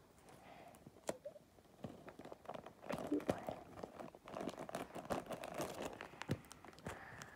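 Wrapping paper crinkling and rustling as it is folded and pressed around a present, a dense run of small crackles.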